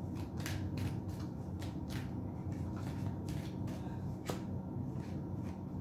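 A deck of tarot cards being shuffled by hand: a string of soft, irregular card clicks over a low, steady hum.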